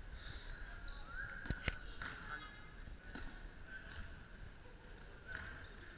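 Basketball shoes squeaking on a hardwood court floor in short chirps throughout, with two sharp thuds of a ball bouncing about a second and a half in.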